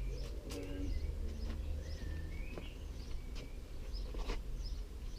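Birds chirping and singing, with a few light clicks and taps over a steady low background rumble.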